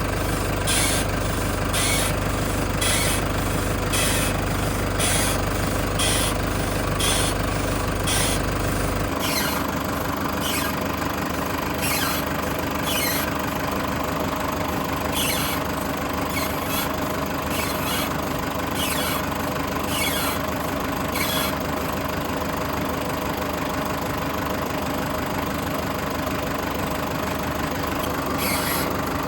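Toyota HiAce van's engine idling. Sharp clicks repeat about one and a half times a second for the first nine seconds; after a change at about nine seconds, the clicks come irregularly.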